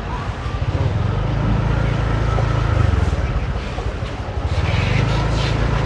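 A motor vehicle engine running steadily with a low pulse. It dips briefly about four seconds in, then picks up again.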